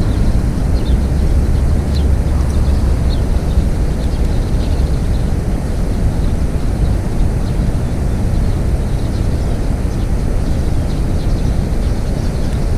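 Wind rumbling on the microphone: a loud, steady low rumble, with faint light ticks scattered above it.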